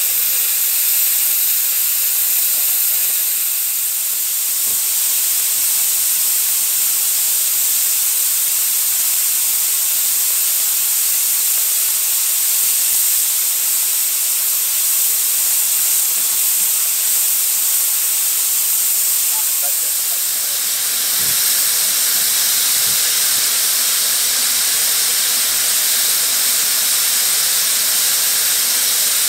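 Narrow-gauge steam locomotive letting off steam: a loud, steady hiss, with a low rumble joining it about two-thirds of the way through.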